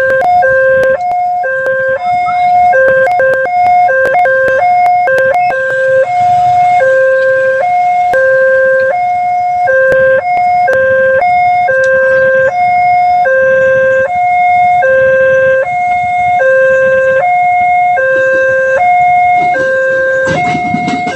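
Railway level-crossing warning siren sounding a loud two-tone electronic alarm, alternating between a lower and a higher note about every half second. The pattern is choppy with clicks for the first few seconds, then even. Near the end a broad rumble starts to rise.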